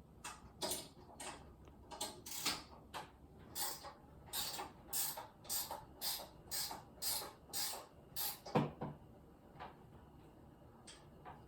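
Hand tool worked in a run of short rasping strokes, quickening to about two a second, then a single low thump a little after eight seconds in. A few fainter strokes follow.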